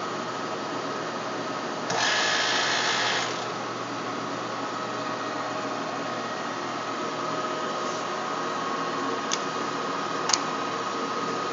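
TOS Trencin SN40 lathe running with a steady mechanical hum. About two seconds in, a louder rushing noise lasts about a second and a half and then stops, and there are two sharp clicks near the end.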